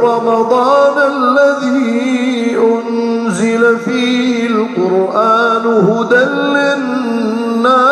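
A man's voice chanting Qur'an recitation in the Rukbani melodic mode, drawing out long ornamented notes with wavering turns and a few short breaks for breath.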